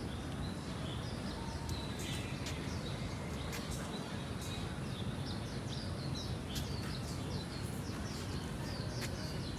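Small birds chirping, many short high chirps in quick succession, over a steady low background rumble.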